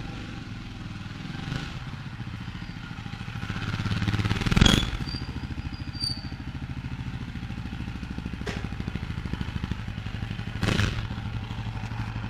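A Jawa 42 2.1 motorcycle's single-cylinder engine running steadily at idle, freshly started after a month unused. It swells briefly about four seconds in. There is a sharp knock near five seconds and a lighter one about eleven seconds in.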